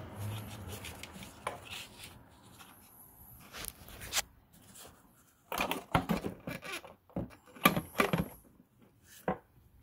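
Scattered clicks and knocks of plastic air-intake parts and the rubber intake boot being handled and pushed into place, coming in small clusters.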